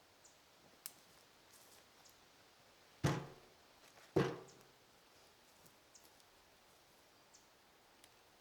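Two sharp knocks a little over a second apart, each ringing briefly, among faint scattered clicks.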